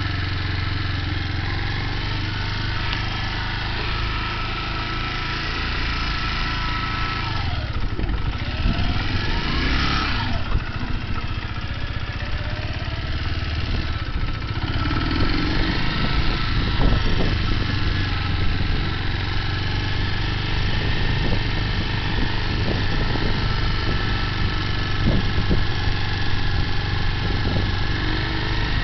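Motorcycle engine running steadily at low speed while the bike is ridden slowly.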